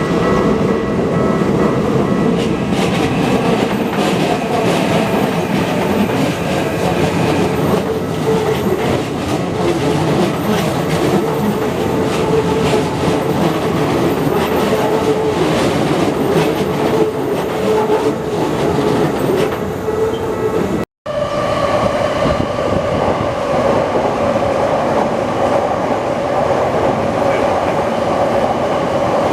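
Keikyu 1500 series electric train passing over a level crossing, wheels clacking over the rail joints, with steady warning tones from the crossing alarm. After a brief cut about 21 s in, the crossing alarm sounds again with the next train on the line.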